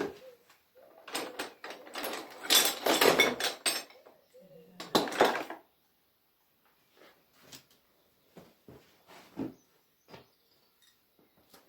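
Metal hose fittings and tools clinking and clattering as they are handled: a dense run of clatter for about three seconds, a shorter burst after it, then scattered light clicks.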